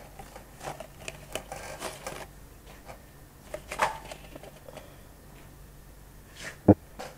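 Quiet room with scattered light clicks and taps, and one sharp knock about two-thirds of a second before the end.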